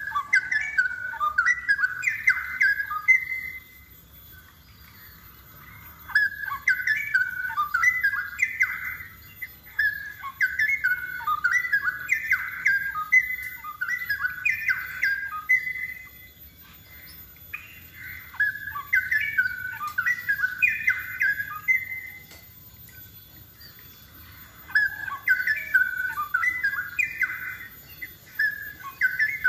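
Straw-headed bulbul singing in full voice: loud runs of quick, bubbling warbled notes. Four bouts of several seconds each are broken by short pauses of two or three seconds.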